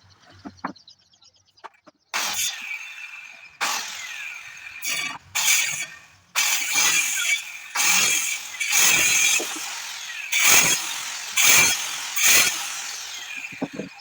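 Power tool working wood, starting abruptly about two seconds in and running in loud, uneven surges with sudden starts and dips; faint clicks before it.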